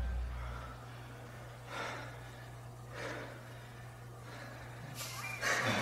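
Backing music ends in the first second, then a few heavy breaths and gasps, about a second apart, from dancers winded after a routine.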